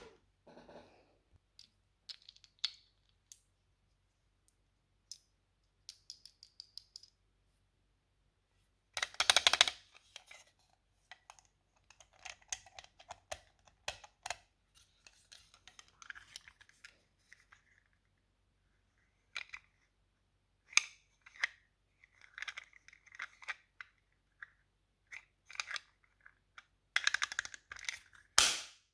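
Toy playset pieces and packaging being handled during an unboxing: scattered small clicks and taps with bits of rustling, and louder rustling or tearing of packaging about nine seconds in and again near the end.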